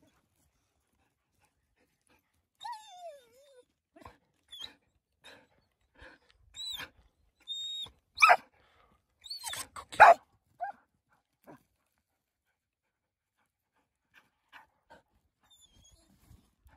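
Dogs calling in scattered single sounds: a falling whine, a few thin high-pitched yips, then two loud single barks about eight and ten seconds in.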